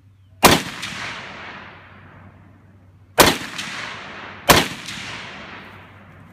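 Three rifle shots from an FAL battle rifle, 7.62×51 NATO, each followed by a long echo that dies away. The first comes about half a second in, and the other two come close together, about three and four and a half seconds in.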